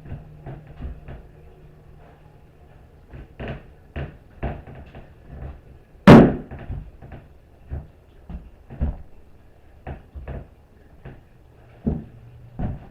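Irregular knocks and clunks of hard objects being handled and set down, with one loud bang about six seconds in.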